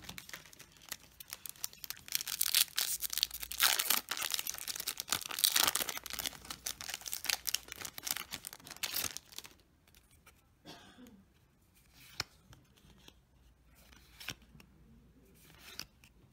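Foil booster-pack wrapper being torn open and crinkled by hand: a dense crackle lasting about seven seconds, followed by faint scattered ticks.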